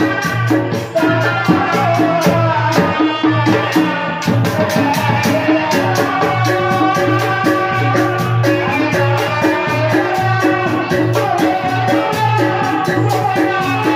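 Live tanji ensemble music accompanying kuda renggong: a fast, even percussion beat with sustained melody lines over a repeating bass.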